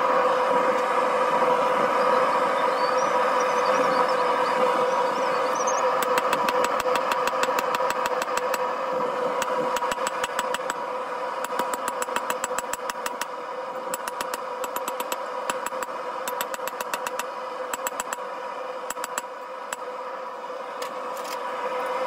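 Hammer striking hot steel on an anvil: a quick, even run of blows starts about six seconds in and stops shortly before the end, with a couple of last taps after. Under it is the steady drone of a propane forge burner.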